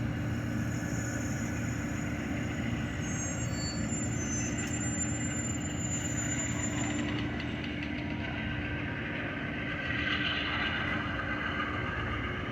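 Amtrak passenger train, a steady low rumble and hum, with a few faint high-pitched tones in the first half and a brief brighter rise about ten seconds in.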